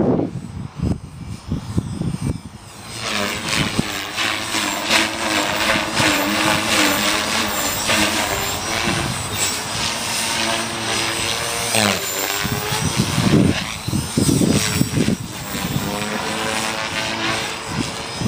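450-size electric radio-controlled helicopter in flight: its motor and rotor whine in a stack of tones that waver up and down as it manoeuvres. Wind buffets the microphone in gusts, most heavily in the first few seconds and again past the middle.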